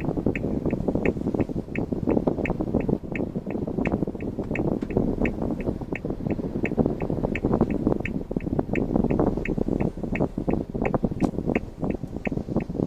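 Car's turn-signal flasher ticking steadily, about three clicks a second, over a continuous low rumble of engine and road noise.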